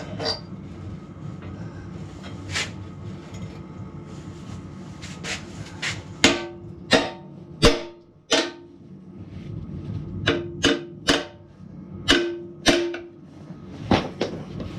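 Hammer blows on steel backhoe parts, each with a short metallic ring. A few light knocks come first, then about ten hard strikes in quick clusters from about six seconds in.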